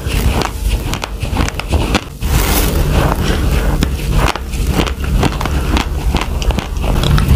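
Raw, uncooked basmati rice being chewed close to a clip-on microphone: a dense, continuous crunching of dry grains, with a brief pause about two seconds in.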